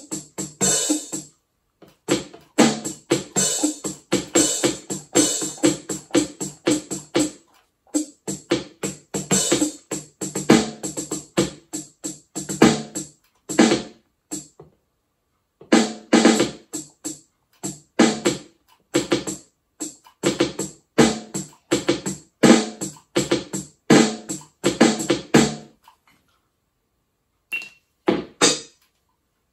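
Roll-up electronic drum kit being played, with a sustain pedal wired in as its foot trigger: a fast run of electronic drum hits, several a second, that stops briefly about halfway and again near the end.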